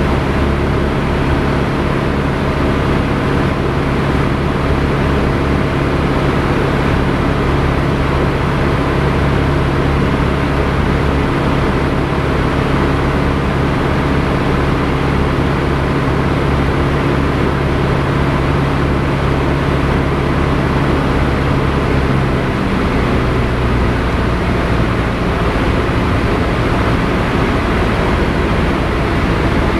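Piper Tomahawk's four-cylinder Lycoming engine and propeller droning steadily in flight, heard inside the cockpit with air noise over the airframe. Late on, the engine note drops slightly in pitch.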